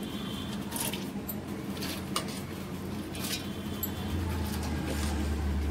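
Soaked moong dal is tipped and scraped with a steel spoon from a steel pan into a steel mixer-grinder jar: a wet, squishy sliding of the swollen lentils, with a few short scrapes and clinks of the spoon against steel about a second apart.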